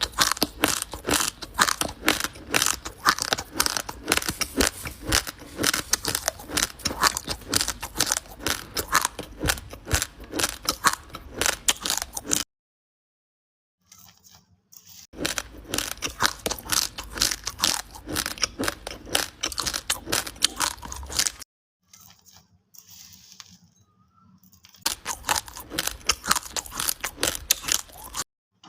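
Close-up crunching and chewing of dry raw basmati rice grains, a fast run of crisp cracks. It comes in three long spells broken by two short pauses.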